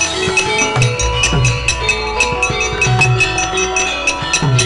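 Javanese gamelan playing the accompaniment to a wayang kulit shadow-puppet play. Pitched drum strokes and ringing metallophone notes sound under a quick, even run of sharp clicks.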